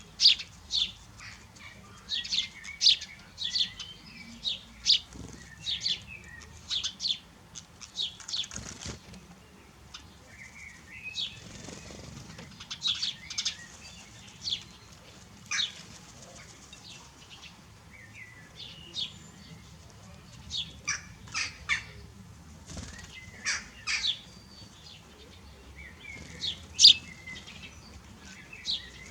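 Small birds chirping: many short, sharp chirps in irregular flurries of several a second with brief pauses, along with some wing fluttering.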